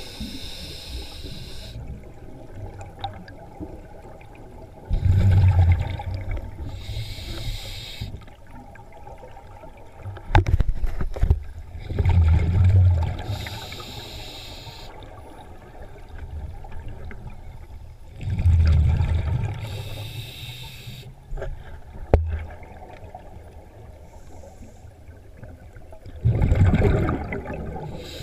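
A scuba diver breathing through a regulator underwater. Each exhale lets out a low burble of bubbles and each inhale draws a hiss through the regulator, in a slow cycle of about seven seconds, four breaths in all, with a couple of sharp knocks between them.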